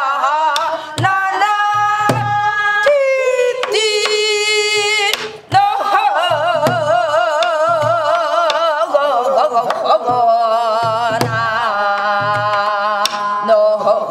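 A woman singing Korean guum, wordless pansori-style vocal syllables, in long held notes with wide vibrato and slides between pitches. She is accompanied by repeated low strokes on a buk barrel drum.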